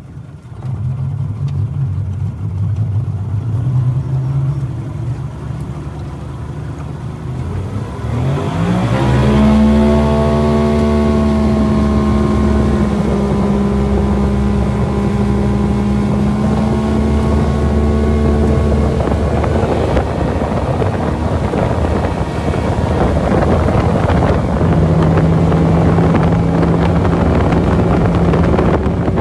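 Tiller-steered outboard motor running at low revs, then opened up to full throttle about eight seconds in: its pitch climbs quickly and then holds high and steady at wide-open throttle as the boat accelerates on a top-speed run.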